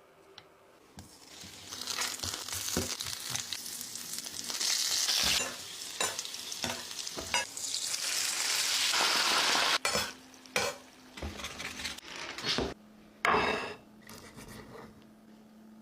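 Food sizzling in a hot pan while it is stirred, with utensil knocks against the pan. The sizzle builds up and then cuts off suddenly about ten seconds in, followed by a few scattered knocks and one short burst of sizzle near the end.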